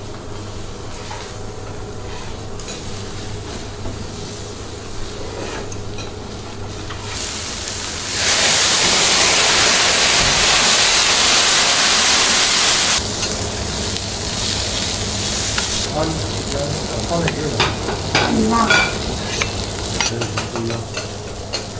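Food sizzling on a teppanyaki steel griddle, which bursts into a loud, even hiss for about five seconds as it is flambéed and flames flare up, then drops back to sizzling with a run of short metallic clicks and taps.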